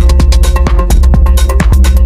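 AI-generated electronic dance music: a heavy sustained bass under a fast, steady drum-machine beat with held synth tones.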